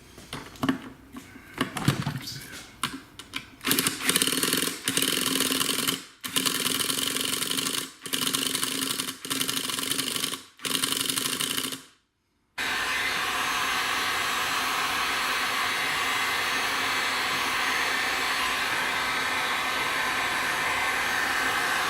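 Electric starter cranking a CXP 15 nitro RC engine, whose cylinder sleeve has been pinched with a hose clamp, in repeated bursts of about a second with short pauses. After a brief break it runs steadily for about nine seconds and cuts off suddenly.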